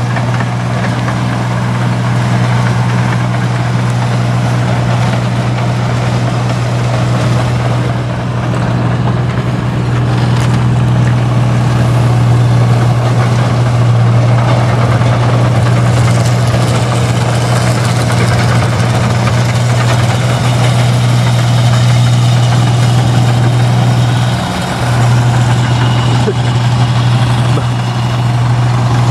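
Heavy diesel engine idling steadily, a constant low hum, with a brief dip in level late on.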